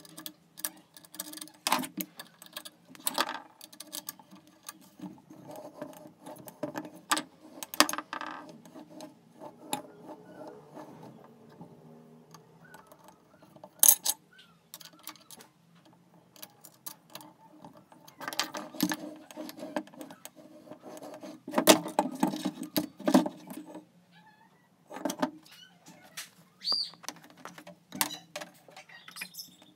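Scattered metal clicks, clinks and knocks as a drill is set and adjusted in a metal bench drill stand with an Allen key and screwdriver, with a few denser, louder clusters of knocks.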